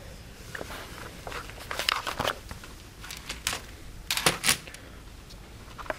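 Scattered handling noises: light clicks and rustling, with clusters of sharper ticks about two seconds in and again around four seconds in.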